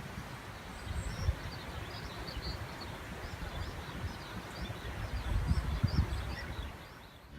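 Outdoor morning ambience: wind rumbling on the microphone, with small birds chirping faintly again and again.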